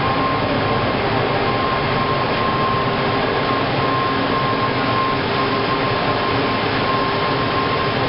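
Ladle furnace arcing: the graphite electrodes' electric arcs heating molten steel in the ladle, a loud, steady noise with a thin high whine running through it.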